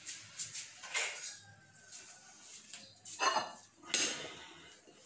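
Pans, plates and a serving utensil clattering and scraping in a few separate bouts, the loudest about three and four seconds in, as cooked fried rice is dished out.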